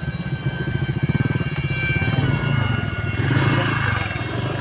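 Motor of a radio-controlled F-22 Raptor model jet running in flight: a steady high whine over a fast low throb. It swells a little about three seconds in.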